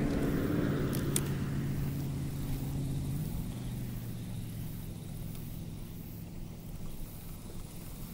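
A passing motor vehicle's engine: a steady low hum that drops in pitch about three seconds in and then slowly fades.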